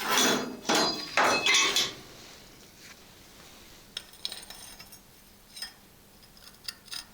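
Small metal pieces clinking and clattering as they are handled: a few loud clanks with a short metallic ring in the first two seconds, then lighter clicks and taps.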